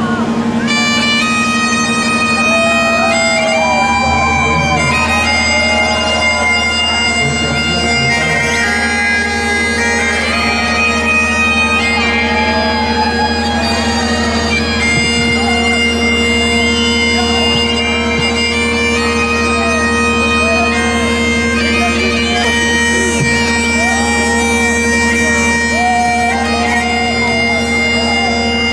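Bagpipes playing a tune over a steady drone. A low steady rumble sets in about four seconds in.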